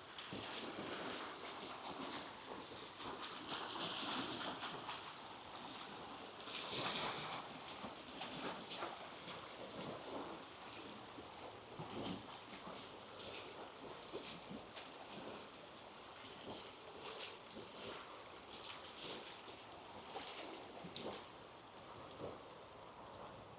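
Footsteps walking on wet fallen leaves and a muddy forest path, irregular soft crunches and squelches, over a steady rushing background that swells loudest near the start and about seven seconds in.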